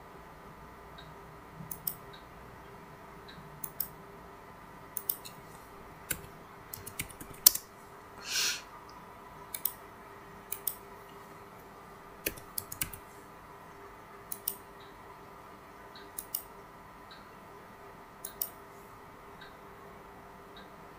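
Computer mouse clicks and keyboard key presses, sharp and irregular, often in quick pairs, every second or so, over a faint steady electrical hum. A short hiss comes about eight seconds in.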